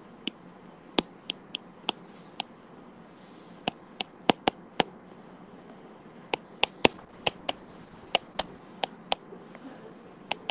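Pen stylus clicking and tapping on a tablet screen while handwriting: sharp, irregular clicks, often several within a second, broken by short pauses.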